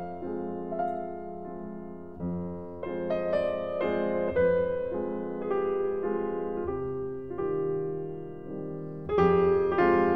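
Background music: slow piano chords struck every second or so, with a louder chord about nine seconds in.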